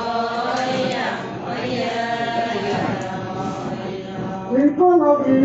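Group of Adi women singing a ponung chant together, several voices holding long wavering notes. Near the end a single louder voice takes over the line.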